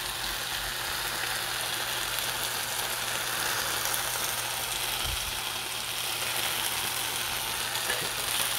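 Octopus and vegetables sizzling in a hot frying pan as they are stir-fried: a steady, even hiss, with a couple of soft knocks.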